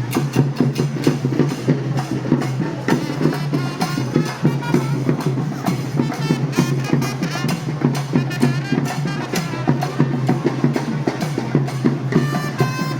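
Traditional procession drums beating fast, dense rhythms. A shrill, pitched wind instrument joins near the end.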